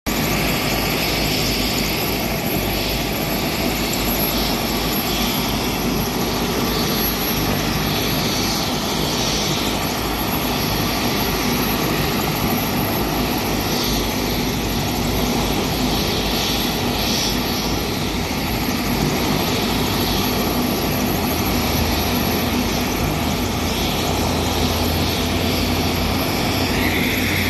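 Helicopter turbine engine running steadily on the ground: an even rush of noise with a steady high whine and a low hum.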